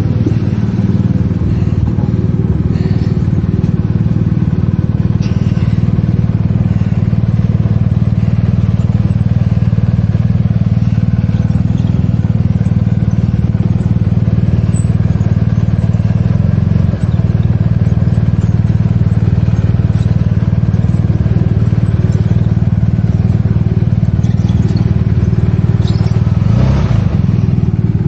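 Motorcycle engine running steadily at low speed during a slow ride.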